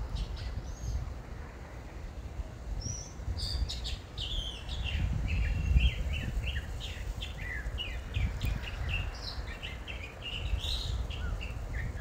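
Songbirds singing: a few scattered chirps at first, then a busy run of quick chirps and trills from a few seconds in. Underneath is a steady low rumble of wind on the microphone.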